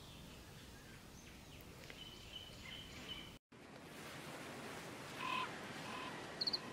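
Outdoor background noise with faint, short bird chirps. The sound cuts out for a moment about halfway through, and a few short tones come in near the end.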